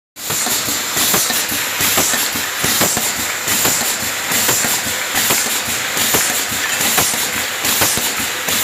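Aerosol filling machine running: rapid irregular clicking and knocking of its mechanism, with a high hiss that comes and goes about once a second and a thin steady whistle behind it.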